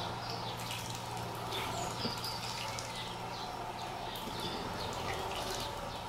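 Sparrows bathing in a shallow bird bath: light splashes and drips of water, with frequent short high chirps and a steady low hum behind them.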